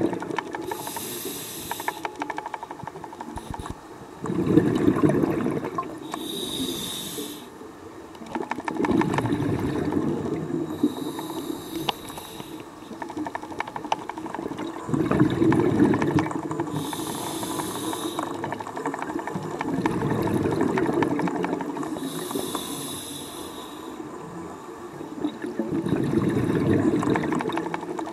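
Scuba diver breathing on a regulator underwater: a short hissing inhale every five to six seconds, each followed by a longer, louder rush of exhaled bubbles.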